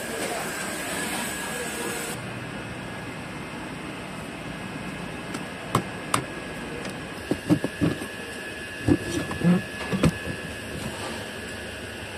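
Scattered metal clinks and knocks of a tool being worked onto the truck's cooling-fan hub, coming in irregular bunches from about halfway through, over a steady workshop hum. A high hiss stops abruptly about two seconds in.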